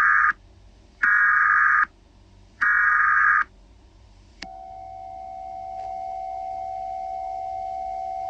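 Emergency Alert System SAME data tones: three short, loud bursts of buzzy digital warble, the end-of-message code closing the alert, the first already under way. About four seconds in a click is followed by a steady electronic alert tone that holds to the end.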